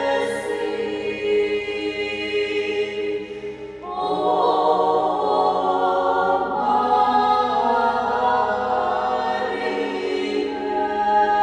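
Women's klapa, a Dalmatian a cappella group, singing sustained chords in close harmony. The chord thins out and dips just before four seconds in, then a fuller, louder phrase begins.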